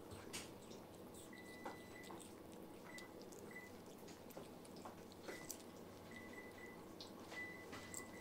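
Very quiet: faint small clicks and smacks of a baby capuchin monkey chewing on a piece of apple, with short faint high peeps now and then.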